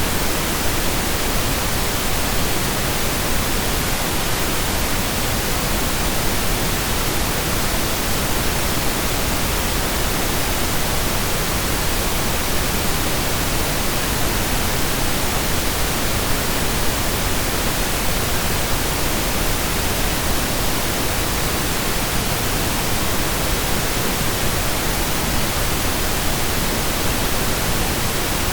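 Steady synthesized pink noise: an even, unchanging hiss spread across the whole range, with equal energy per octave and no events in it.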